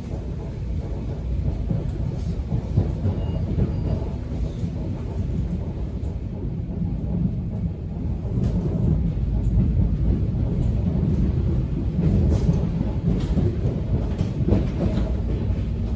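Subway train running along the track, a steady low rumble with scattered rattles and clicks of the wheels and car body.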